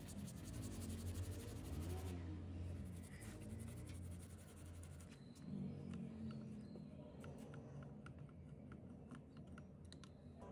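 Toothbrush scrubbing the rusty steel needle plate of an old sewing machine with fast scratchy strokes, easing off after a few seconds; then scattered sharp clicks of a screwdriver tip working the plate's screw. A steady low hum lies underneath.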